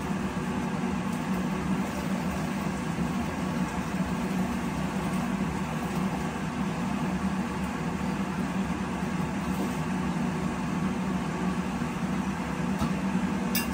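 A steady mechanical hum with a hiss over it, holding level throughout, and a light click near the end.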